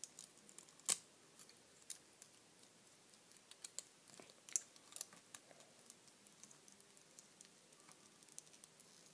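Faint, irregular plastic clicks and taps of LEGO pieces as a minifigure is handled and fitted onto the small LEGO 6532 Diesel Dumper, with a sharper click about a second in and a few more around the middle.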